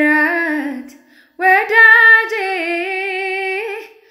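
A woman singing unaccompanied: a short phrase that falls in pitch, a brief pause, then a longer held line that wavers gently before fading out near the end.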